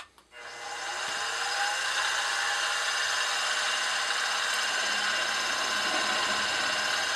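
Benchtop milling machine spindle switched on with a click, winding up to speed with a rising whine over about a second, then running steadily with a center drill in the chuck.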